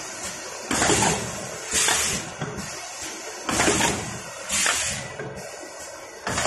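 Paper clamshell-box forming machine running through its cycle: a short, sharp hissing burst comes roughly once a second over a lower mechanical clatter.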